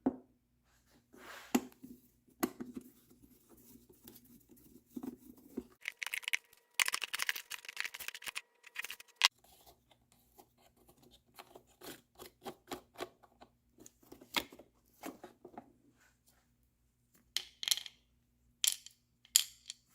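Hand disassembly of an electric pressure washer's plastic housing with a hand screwdriver: scattered clicks and taps of the tool and screws, and a longer stretch of scraping and rasping about six to nine seconds in.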